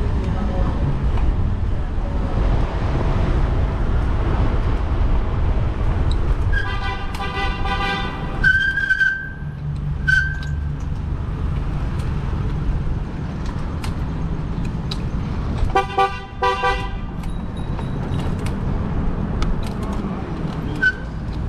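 Steady low rumble of road and wind noise while riding through traffic. A vehicle horn sounds twice: once about six and a half seconds in for about two seconds, and again briefly about sixteen seconds in.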